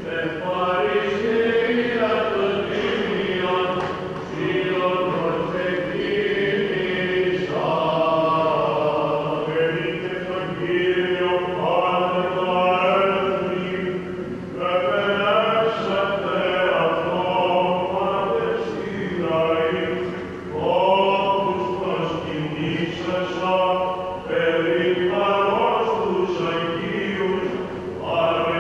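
Byzantine chant sung by church chanters: a melody moving in long phrases over a steady held low drone (the ison).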